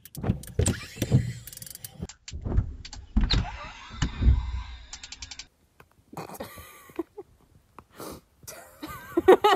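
Several dull thumps from a cat pouncing on a car windshield, heard from inside the car, along with a mechanical whirring.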